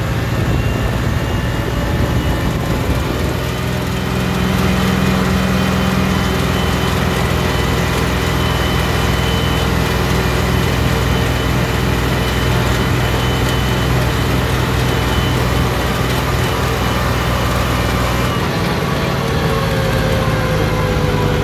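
John Deere 5210 tractor's diesel engine running steadily under load at road speed, about 30 to 35 km/h, heard from the driver's seat.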